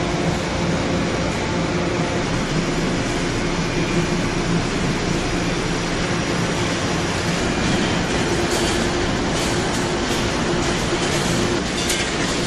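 Steady din of food-processing machinery running, with a continuous motor hum. From about eight seconds in, irregular rattling clicks join it.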